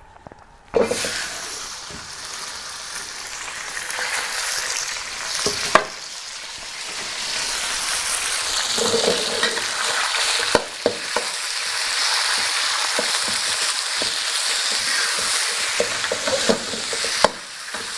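Thin slices of chicken and beef searing in a hot, oiled iron wok, with a steady sizzle that starts suddenly about a second in as the meat goes into the pan. A metal wok spatula scrapes and clacks against the wok now and then as the meat is stirred.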